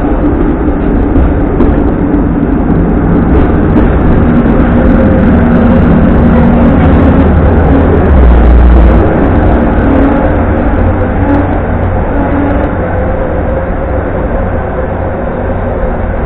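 Hong Kong double-decker electric tram running on its rails, heard from the driver's platform: a steady low rumble with a motor hum that shifts in pitch. It is loudest about eight seconds in, then eases off.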